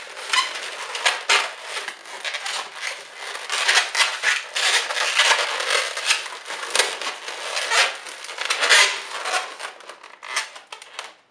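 Red latex modelling balloon rubbing and squeaking in the hands as its long end is twisted and wrapped tightly around a cluster of three bubbles, in a quick run of short scraping squeaks that ease off near the end.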